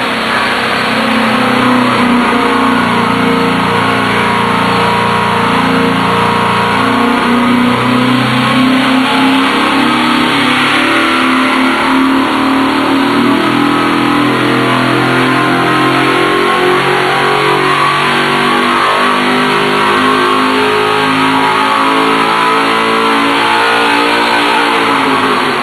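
GM Performance Parts CT525 crate engine, an LS-based V8, running at wide-open throttle against the load of an engine dyno during a power pull. Its note climbs slowly toward nearly 6,900 rpm, then the throttle closes and the pitch falls just before the end.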